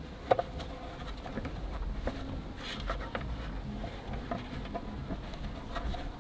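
Scattered light clicks and metallic taps of a hex key and spanner against the car body as the rusted fuel filler flap hinge is unbolted and worked free, with one sharper click just after the start.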